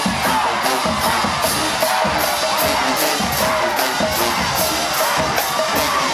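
Marching band playing live: brass over a drumline with a steady beat of cymbal-like strokes about four a second, and the crowd cheering underneath.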